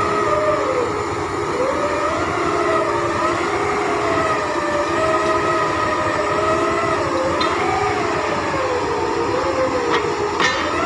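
Heavy construction machinery running, a whining tone that rises and falls irregularly over a steady lower hum and rumble, with a brief click near the end.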